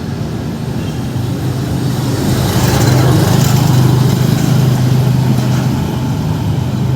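Road traffic: a motor vehicle's engine running with a steady low hum under broad tyre and road noise, growing louder about two seconds in as it passes and easing slightly toward the end.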